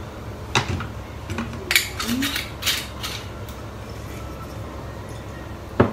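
Light clinks and knocks of a metal spoon and a glass vinegar bottle handled at a glass blender jug: a scatter of short clinks over the first three seconds, then one sharper knock near the end.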